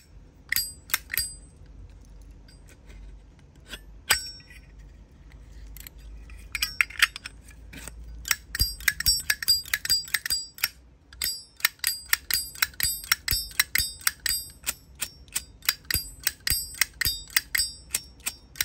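Brass Zippo lighter lid flicked open and snapped shut over and over, each stroke a sharp metallic click with a short bright ring. A few strokes come early, then a quick run of them, two to three a second, from about halfway through. The cam is snapping the lid closed firmly.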